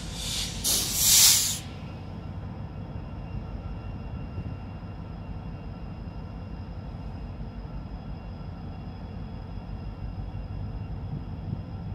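Two short hisses of compressed air close together in the first two seconds, the second the louder, typical of air brakes venting, over the steady low idle of a diesel locomotive.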